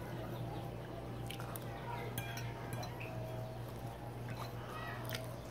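Scattered light clinks and taps of eating utensils against dishes, over a steady low hum.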